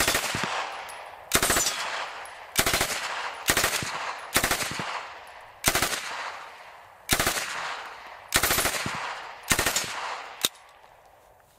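MK760 9mm open-bolt submachine gun, a copy of the Smith & Wesson 76, firing about ten short full-auto bursts of a few rounds each, roughly one burst a second. Each burst trails off in echo.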